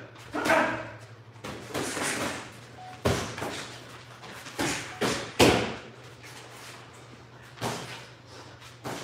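Thuds and slaps of 14-ounce boxing gloves and footwork during a sparring round: about eight irregular impacts, the loudest about five and a half seconds in, over a steady low hum.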